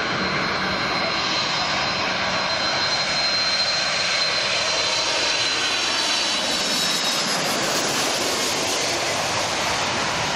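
Boeing 747's four jet engines on low final approach, a steady loud roar with a high whine that drops slightly in pitch as the airliner passes overhead.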